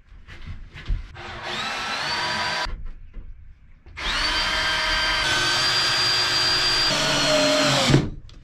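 Cordless drill driving screws into a plywood shelf. The motor whine runs twice, first for about a second and a half, then for about four seconds, rising in pitch each time as it spins up, after a few light knocks in the first second.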